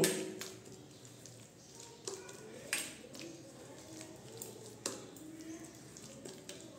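A hand mixing a thick, wet pea-and-lentil paste in a stainless steel bowl: soft squelching, with a few sharp clicks of fingers or bangles against the bowl.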